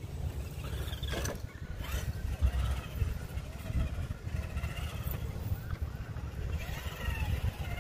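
Small electric motors and geartrains of two RC rock crawlers, a Traxxas TRX-4 '79 Ford Bronco and a Redcat Gen7 Pro, whining and rising and falling in pitch with the throttle as they crawl down a dirt slope. A couple of sharp knocks come between one and two seconds in as a truck comes off the wooden planks. A low, uneven rumble runs underneath.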